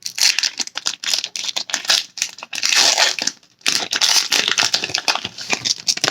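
Foil wrapper of a Pokémon card booster pack crinkling and tearing as it is opened by hand, in close, continuous rustles.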